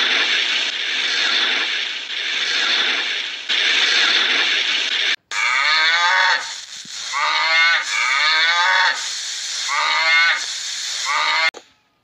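A steady rushing noise for about five seconds, then cattle mooing: about five long moos one after another.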